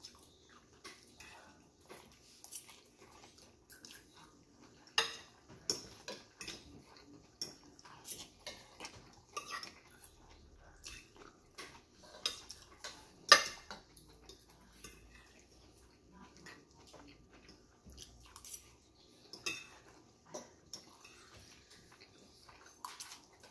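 Metal fork clinking and scraping against a ceramic plate in scattered short clicks, the sharpest about five and thirteen seconds in.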